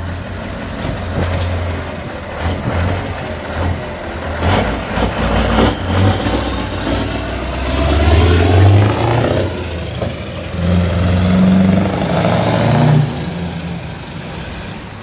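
Scania R500's V8 diesel on an open (straight-pipe) exhaust, pulling away in low gears. The revs rise twice, loudest about halfway through and again a little later, then the sound fades as the truck moves off.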